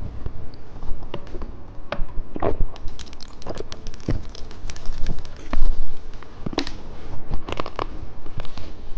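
Close-miked candy eating and handling: irregular sharp crackles, cracks and crinkles, with the loudest cluster a little past the middle.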